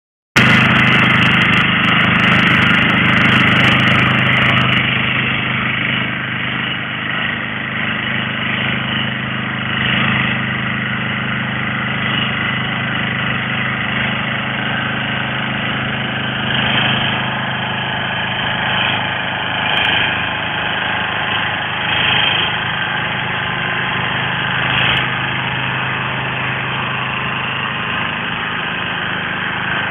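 Two-wheel walking tractor's engine running steadily while driving a rear rotary tiller through loose soil for seedbed preparation, with a few brief swells in the noise.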